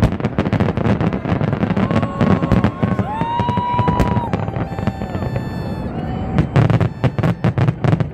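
Fireworks going off: a rapid run of bangs and crackles over a low rumble, with a few held whistling tones in the middle.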